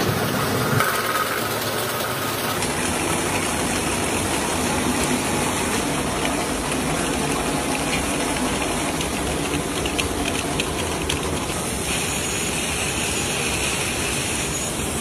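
Matchbox-making machinery running: a steady mechanical hum with a hiss, its character changing about two and a half seconds in and again near the end, with a few faint ticks in the middle.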